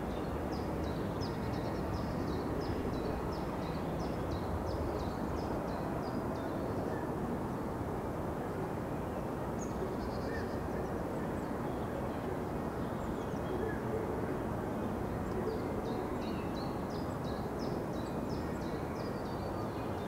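Steady outdoor hush of wind moving through the trees around a lake. Over it, a small songbird sings a quick run of high, repeated chirps, about two or three a second, for the first several seconds and again near the end.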